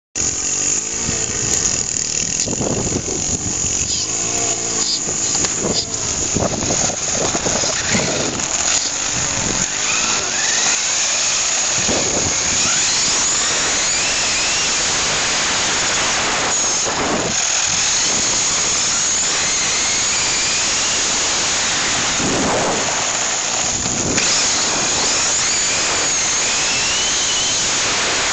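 Electric motor and gears of a Tamiya Blazing Star RC car on a TA-01 chassis, heard from a camera riding on the car. A whine rises and falls in pitch as the car speeds up and slows. Under it is a steady hiss of tyres on rough asphalt, with scattered knocks and rattles over bumps in the first half.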